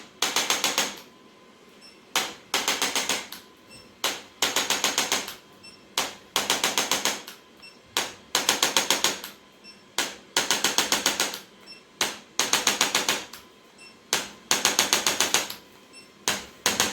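Handheld percussive adjusting device firing in short bursts of rapid clicks, each burst under a second long and repeating about every two seconds, with a few single clicks between bursts.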